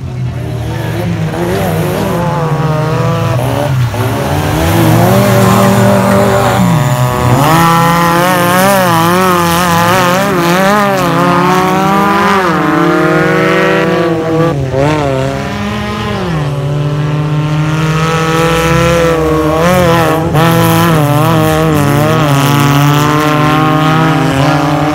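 Offroad 4x4 race vehicles' engines revving hard and loud, the pitch rising and falling again and again as the throttle is worked.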